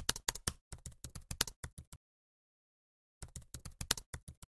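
Rapid computer-keyboard typing clicks, a sound effect for text being typed out on screen. The clicks stop about two seconds in and start again about a second later.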